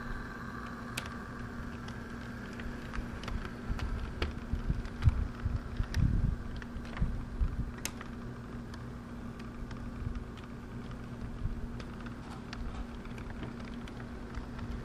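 Bachmann Spectrum model train (HHP-8 locomotive and Acela cars) rolling past at close range: irregular clicking of wheels over rail joints over a low rumble, with a steady hum and a faint motor whine that fades as the train moves on.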